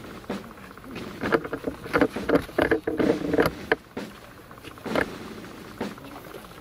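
Earth being shovelled into the grave: clusters of dull thuds and gritty rattles as soil lands, from about one to four seconds in and once more around five seconds.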